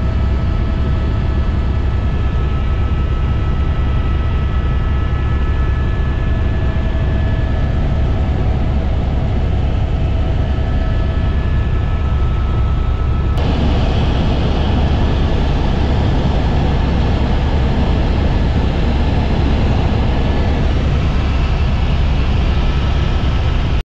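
Helicopter cabin noise in flight: a loud, steady drone of the rotor and turbine engine with a faint steady whine over it. The sound changes abruptly about 13 seconds in.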